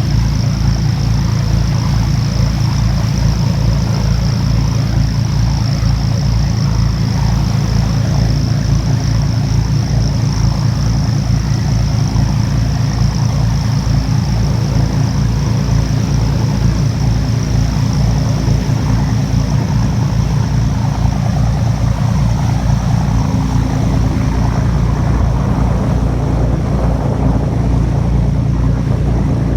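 Engine of a small passenger cruise boat running steadily at cruising speed, heard from on board, with a steady low throb.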